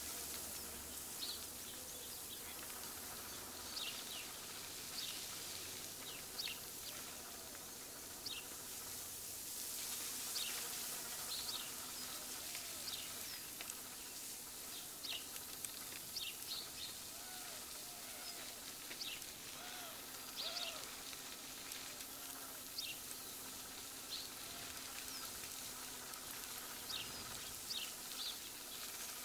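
Birds calling outdoors, many short high chirps scattered through, with a few lower rising-and-falling calls about two thirds of the way in, over a steady background hiss.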